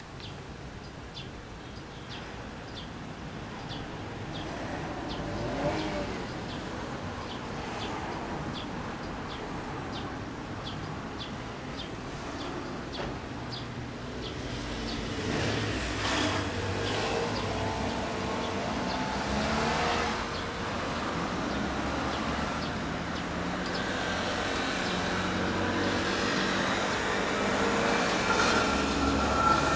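Road traffic going by, with vehicles swelling and fading as they pass and the noise growing louder in the second half. A regular high ticking, a bit more than once a second, runs through the first half.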